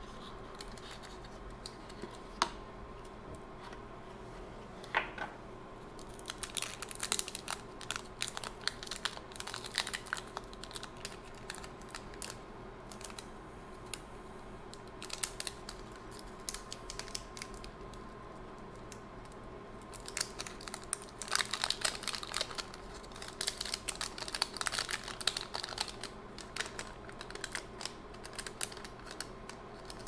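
Hands handling cardboard and plastic SSD packaging: irregular clicks, taps and crinkling in several bursts, the busiest stretch about two-thirds of the way through.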